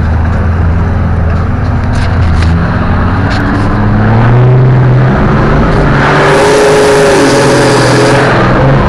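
Four-wheel-drive engine working under load off-road, its pitch stepping up and down as the revs change. From about six seconds to just past eight a loud rushing noise comes in over the engine, which is running higher, and a few sharp knocks sound between two and three and a half seconds in.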